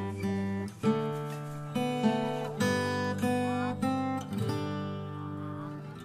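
Background music: an acoustic guitar picking and strumming chords, with a new chord or note struck every second or so.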